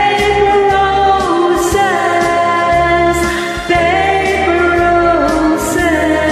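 A woman singing a slow ballad over a backing track, holding long notes that step to a new pitch twice.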